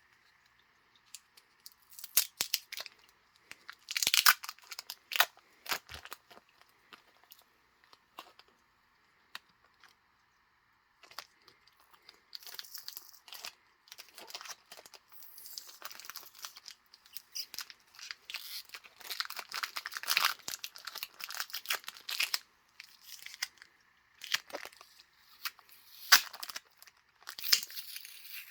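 Packing tape being torn and peeled off a heavily taped package, with plastic and paper crinkling and sharp snaps and clicks. It pauses for a few seconds about a third of the way in, then the crinkling and tearing resume more steadily.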